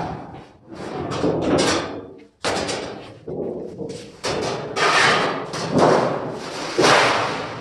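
A large sheet of thin steel rattling and flexing as it is lifted and carried, in a run of irregular noisy clatters, loudest about five and seven seconds in.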